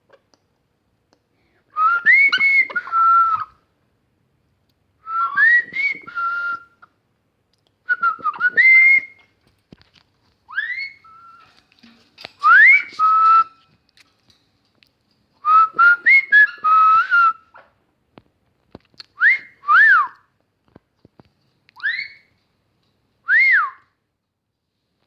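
Whistling in about nine short phrases, a few seconds apart. Each phrase is a sliding tune that rises and falls; the early ones repeat a similar rising-then-level pattern, and the later ones are single quick up-and-down glides.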